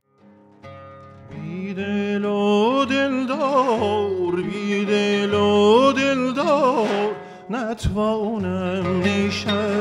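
A man's voice singing a long, ornamented Persian vocal line with wavering, sliding pitch over a steady low drone. Near the end, daf frame drum strikes come in.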